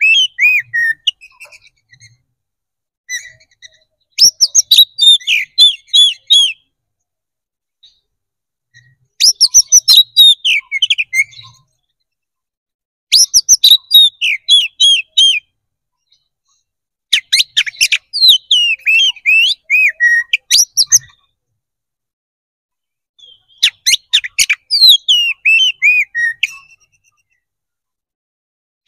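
Male oriental magpie-robin (kacer) singing its full fighting-mode song: about six bouts of rapid, varied whistles and chirps, each two to four seconds long, separated by short silences.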